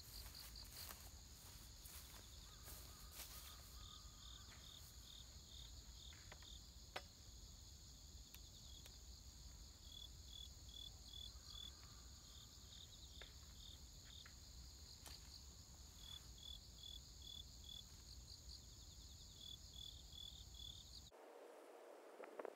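Faint insects in the countryside: a steady high-pitched trill with crickets chirping in short runs of quick pulses that repeat every second or two, and a few soft clicks. The sound changes abruptly near the end.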